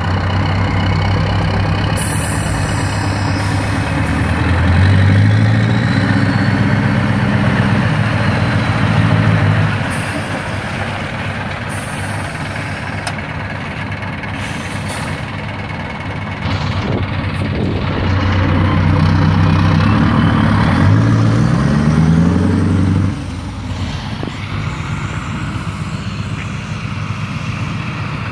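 Scania R560's V8 diesel with open straight-pipe exhaust stacks, pulling away under load: the revs climb about four seconds in and again about twenty seconds in, each time dropping off sharply several seconds later. Short hissing sounds come about two and twelve seconds in.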